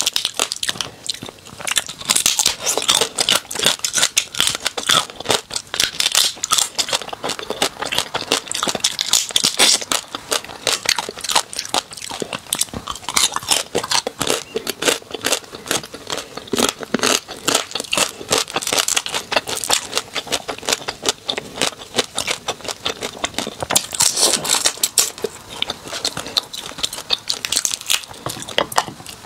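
Close-miked cracking and crunching of small whole spicy crabs' shells as they are pulled apart by hand and bitten, many sharp cracks in quick succession.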